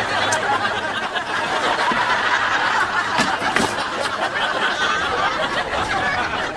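Studio audience laughing steadily, many voices at once, in response to a comedy sketch's punchline.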